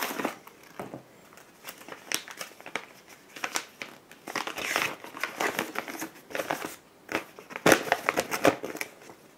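A mailing package and its shipping papers crinkling and rustling in the hands as the package is slit open with a pocket knife and the papers are pulled out. It comes as irregular crackles, the loudest near the end.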